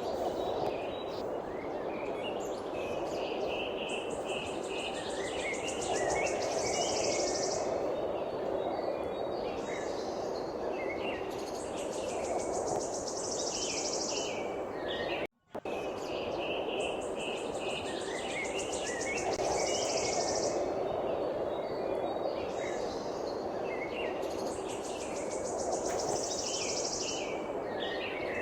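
Wild birds chirping and twittering over a steady background hiss, with a rapid high-pitched trill that comes in several times for about two seconds at a time. The sound cuts out for a split second about halfway through and then the same stretch repeats, as a looped recording does.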